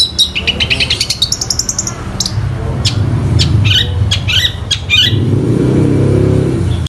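Long-tailed shrike singing: fast runs of high chirps, then sharp separate notes, in the mimicking song these birds are kept for. A low rumble runs under it and grows louder after about two seconds.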